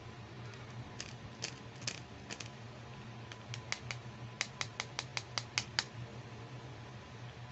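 Small plastic clicks and taps from a pink plastic toy hair curler being handled in the hands: a few scattered clicks, then a quick run of about five a second in the middle of the stretch, over a steady low hum.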